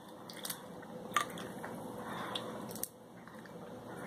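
Snow crab leg shell being cracked and the meat picked out by hand at close range: a few sharp cracks, the loudest about a second in, over soft squishy picking and chewing.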